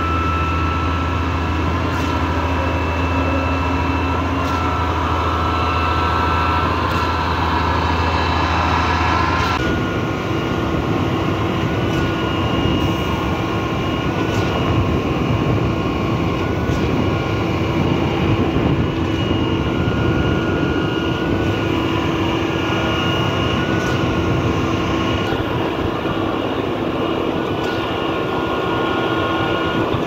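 Truck-mounted Cifa K41 concrete boom pump running steadily while pumping concrete: a continuous heavy engine-and-machinery drone with steady hum tones. About ten seconds in the sound changes abruptly, the deep hum dropping away and a higher steady tone taking over.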